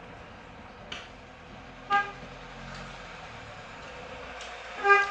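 A vehicle horn honking: one short toot about two seconds in, then three quick, louder toots near the end.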